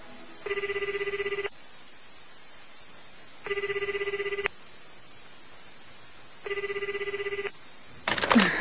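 Telephone ringback tone heard through the handset: three fast-warbling rings, each about a second long and about three seconds apart, as a call goes unanswered. A short loud noise comes just before the end.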